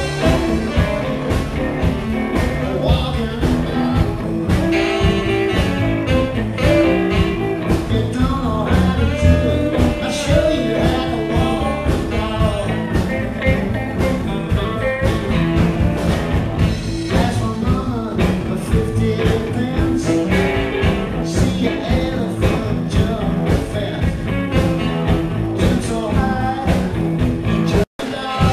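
Live blues band playing a steady-beat number: electric guitar and saxophone over keyboard, bass and drums. The sound drops out for an instant near the end.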